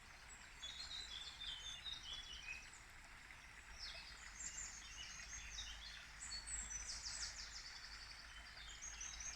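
Birds singing, with quick repeated trills and chirps, over the steady babble of a stream running over rocks.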